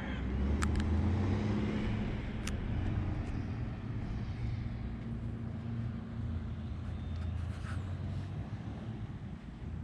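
An engine running steadily, a low hum whose pitch shifts a little, with a few sharp clicks.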